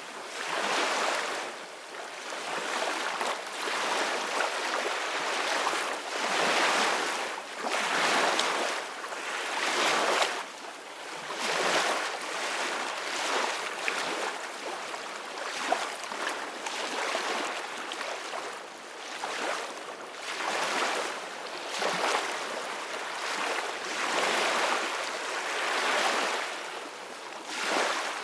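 Ocean waves washing onto a shore, a steady hiss of surf that swells and falls back every couple of seconds.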